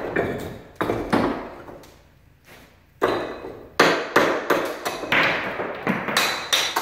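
A hammer striking the edge of a natural stone slab held in the hand, dressing its edge to shape: a few knocks near the start, then from about three seconds in a quick, even run of sharp ringing strikes, about three a second.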